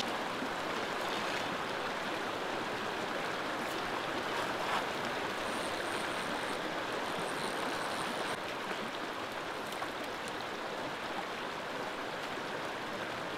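Creek water rushing steadily over rocks in the East Fork of the San Juan River.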